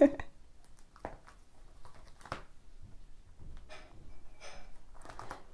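Clear plastic photocard sleeve pages in a ring binder being handled and turned over, with a few soft rustles and light taps; the sharpest tap comes a little after two seconds in.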